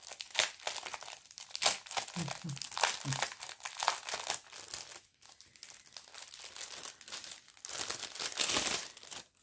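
Plastic packaging crinkling and crackling irregularly as a diamond painting kit's bag is handled and opened, busiest near the end.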